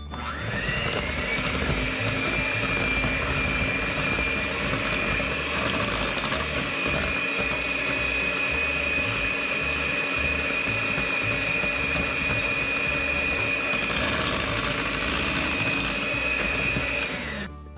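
Electric hand mixer beating cake batter in a glass bowl. Its motor whine rises as it spins up at the start, holds steady, then winds down and stops near the end.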